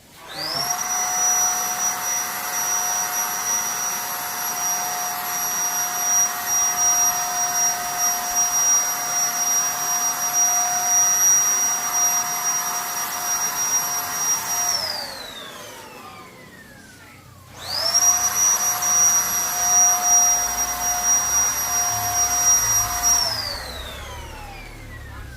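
Zipper electric paint spray gun's motor running with a steady high whine over an airy hiss. It winds down with a falling pitch about 15 seconds in, starts again a few seconds later, and winds down again near the end.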